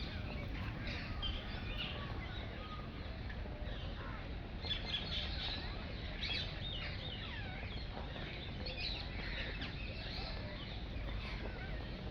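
Many small birds chirping, with short, quick calls that grow busier about four seconds in.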